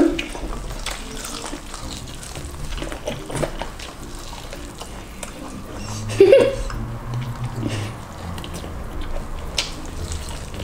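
Eating sounds at a table: scattered small clicks and handling noises from picking at seafood, with one short voiced sound about six seconds in.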